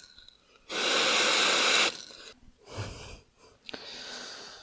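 Aerosol freeze spray (ice spray) hissing: one strong burst of about a second, then a few shorter, weaker puffs, chilling a part so it shrinks for a tight fit into the engine case. A single click near the end.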